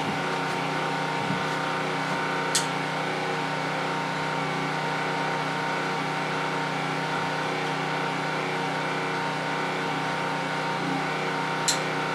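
A steady machine hum made of several even tones, with two short sharp ticks, one about two and a half seconds in and one near the end.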